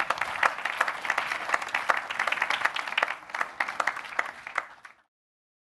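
Audience applauding, a dense patter of many hands clapping that fades and then cuts off to silence about five seconds in.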